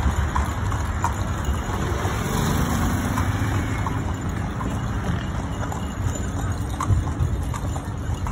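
Horse-drawn carriage rolling along a busy street: a steady low rumble of wheels and nearby traffic, with light clicks about once a second.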